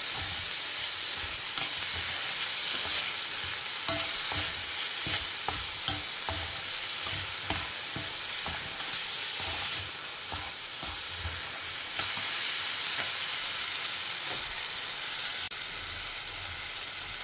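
Chopped onion and tomato sizzling in oil in a stainless steel pan, stirred with a steel spoon that scrapes and clicks against the pan now and then.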